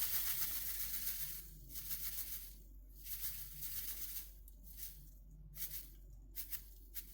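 Granulated sugar trickling from a bag into a bowl: a steady hiss for about the first second, then a series of short, separate trickles as it is tipped in bit by bit to reach the weight on the scale.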